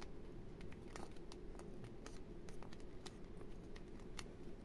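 Adhesive tape and a rolled paper tube being handled: faint, irregular small clicks and crackles as the tape is pressed and smoothed around the tube, over a low steady background hum.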